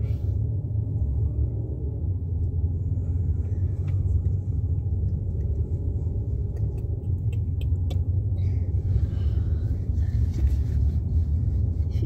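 Steady low rumble of a car driving, its road and wind noise heard from inside the moving vehicle, with a few faint clicks.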